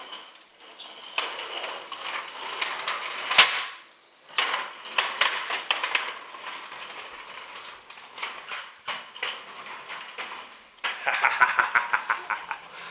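Plastic wheels of a toy doll stroller rattling and clattering as it is pushed across a hard floor, with a sharp knock about three and a half seconds in and a faster run of clicking near the end.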